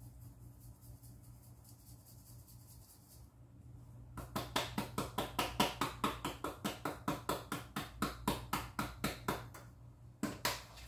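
Spice jar of parsley flakes being shaken over a pan: a fast, even rattling of about five shakes a second that starts about four seconds in and stops near the end, over a low steady hum.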